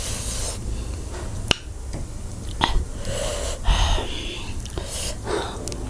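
Close-miked eating sounds: sharp mouth clicks and lip smacks between hissing breaths drawn through the mouth, as of someone eating very spicy food.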